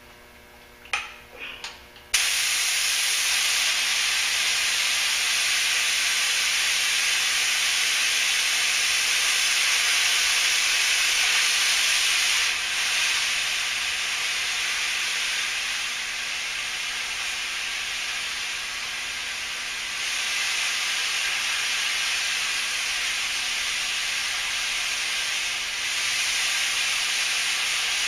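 Compressed air hissing steadily through a paint spray gun held open while its air pressure is set, starting suddenly about two seconds in after a few light clicks. The hiss drops a little in level about halfway through and rises again later.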